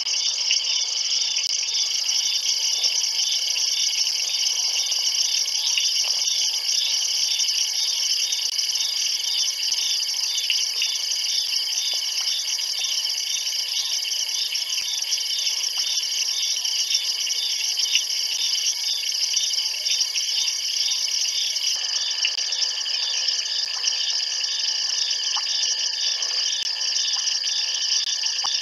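Night insect chorus, crickets among them: a dense, steady high trilling with an evenly repeating chirp running through it. About two-thirds of the way through, one very high steady note stops and a lower steady note comes in.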